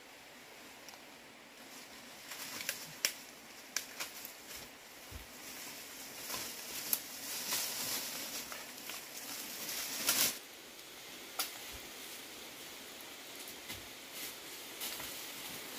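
Dry leaves and bamboo litter rustling and twigs snapping as a person pushes through dense undergrowth and walks over leaf litter, with a string of sharp cracks, the loudest about ten seconds in.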